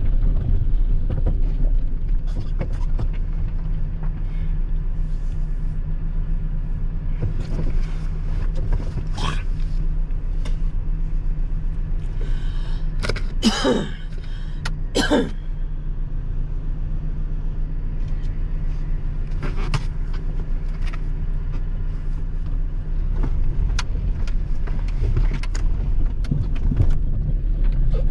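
Off-road 4x4 driving over a rough mountain trail: a steady low engine and drivetrain rumble with frequent knocks and rattles. Two loud, high-pitched sliding sounds come about halfway through.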